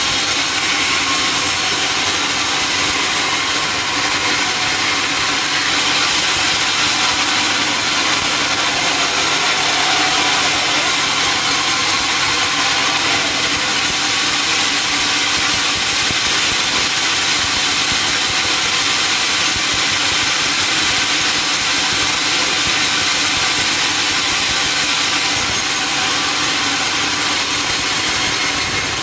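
Sawmill saw running steadily, cutting lengthwise through a teak log with a continuous high, even whine.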